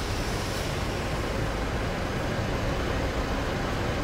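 Mitsubishi 4N15 2.4 turbo-diesel engine of a Pajero Sport idling steadily, heard at the exhaust tailpipe, with a low, even rumble.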